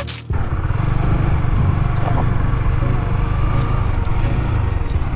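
Honda motorcycle engine running steadily while it is ridden, a dense low rumble with no changes in pitch.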